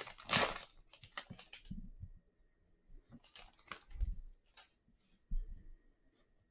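Foil trading-card pack of 2020 Optic football being torn open and crinkling for about the first second and a half, then light clicks and taps as the cards are handled and set down on the table.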